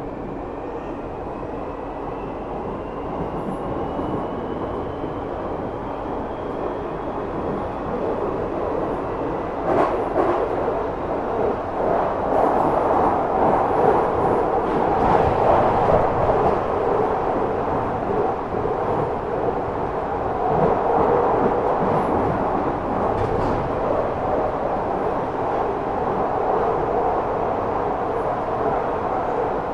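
London Underground 2009 Tube Stock train heard from on board: the whine of its Bombardier Mitrac IGBT traction inverter and motors rises in pitch as the train accelerates over the first several seconds, then gives way to steady, louder wheel and running noise from about ten seconds in.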